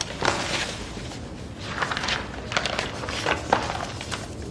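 Paper rustling: a few short rustles as loose sheets, a folder and a small slip of paper are gathered up and handled.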